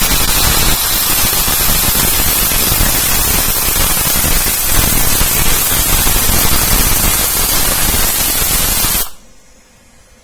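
Loud, even hiss of static or white noise that starts abruptly and cuts off suddenly about nine seconds in.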